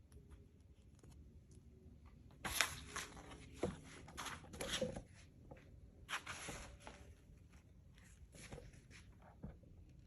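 Rustling and crinkling of packaging being handled, in two bursts about two and a half and six seconds in, with a few light knocks near the end.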